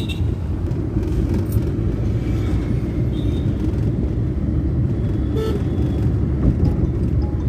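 Car driving on the road: steady low engine and road rumble, with a brief vehicle horn toot about five and a half seconds in.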